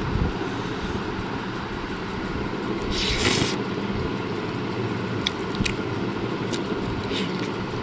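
Steel fork and spoon working through a plate of noodles: a brief scrape about three seconds in, then a few sharp clicks of metal on the plate, over a steady background rumble.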